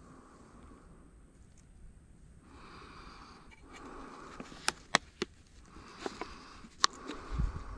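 Breathing close to the microphone, in slow hissing swells, with a few sharp clicks in the second half and a low thump near the end.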